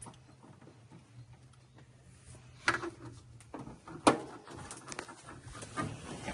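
Scattered clicks and knocks of hand tools and metal hardware being worked on a car battery's cable connections, the sharpest about four seconds in.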